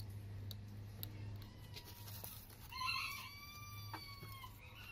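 A rooster crowing once, a single long call starting a little past halfway through and sliding slightly down in pitch as it ends. Faint clicks of metal pump parts being handled and fitted come before it.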